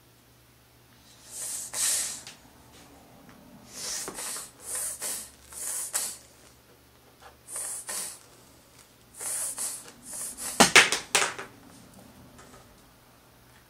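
Baby gnawing and sucking on a piece of toast: a series of short, hissy mouth and breath noises, with a louder cluster of smacks and clicks near the end.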